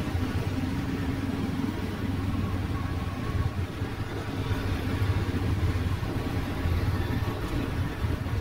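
Steady drone of motorbike engines and street traffic, heard from a vehicle moving with the traffic.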